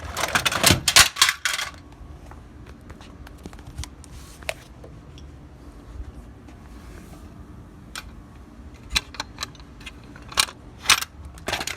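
Clicks and light metallic rattling of small objects being handled: a cluster of clattering in the first second and a half, then a few single clicks near the end.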